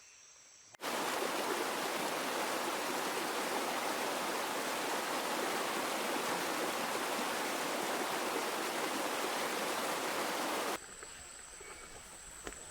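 Rushing water, a steady, loud, even rush that starts abruptly about a second in and cuts off suddenly about two seconds before the end.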